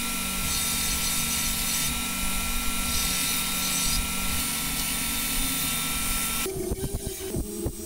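Benchtop combination belt and disc sander running steadily, its motor whirring with a constant whine. About six and a half seconds in, the sound changes abruptly to a lower, uneven one with irregular knocks.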